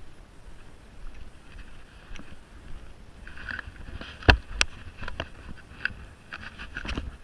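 Wind rumbling on an action camera's microphone, with two sharp knocks a little past four seconds in and a run of lighter clicks after them as the fishing rod and camera are handled.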